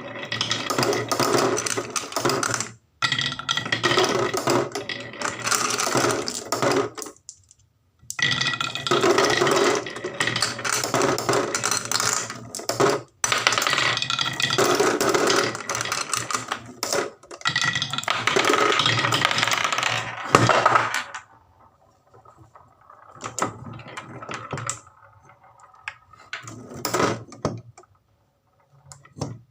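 Marbles rolling and clattering down a wooden marble run, in runs broken by short pauses, thinning to sparser clicks after about 21 seconds.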